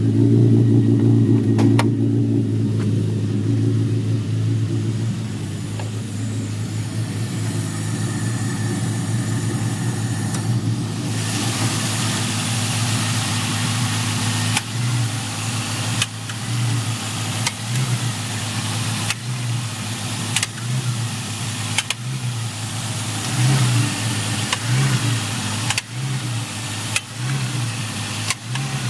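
Honda Civic Type R (EP3) engine running at idle. From about halfway, the revs swell and dip in a regular cycle a little more than a second long, with a sharp click or knock at each cycle. These are the hunting revs and clunking that go with the car's VTEC system malfunction code, P1259.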